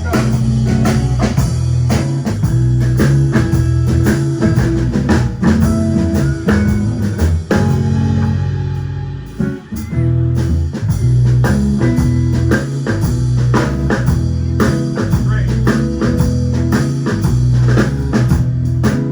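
Blues band playing an instrumental passage on guitar and drum kit. It thins out briefly about halfway through, then the full band comes back in.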